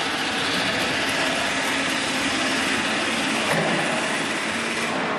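A small engine running steadily: a loud, even hiss with a faint low hum underneath.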